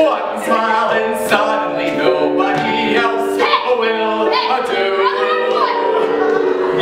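A man singing a musical-theatre number to digital piano accompaniment.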